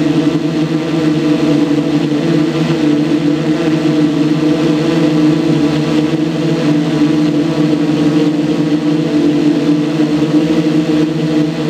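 Small model-aircraft engine running steadily, a constant buzzing note with slight wavers in pitch.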